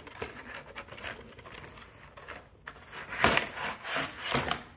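Cardboard toy box and its insert rubbing and scraping as the box is handled and pulled open, with a louder scrape about three seconds in and two more near the end.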